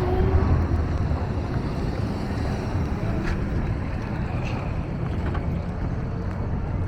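Steady low rumble of vehicle engines, with a few faint clicks.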